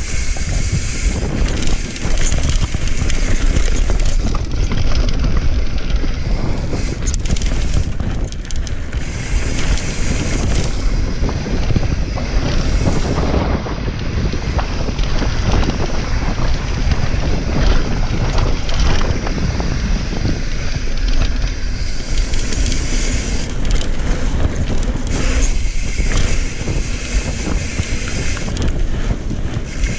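Mountain bike descending a dirt singletrack, heard from an on-bike camera: tyres rumbling over the dirt and the bike rattling, with wind rushing on the microphone.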